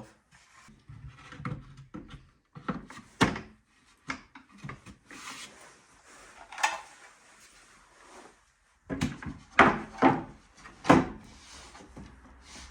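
Wooden shelf boards knocking and scraping against a wooden kitchen cabinet as they are handled and fitted: irregular knocks, the loudest ones in the last few seconds.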